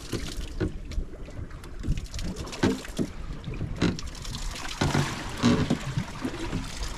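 Water sloshing and slapping against the hull of a drifting offshore fishing boat, with wind on the microphone. Scattered knocks and a few brief, muffled voice sounds come around the middle.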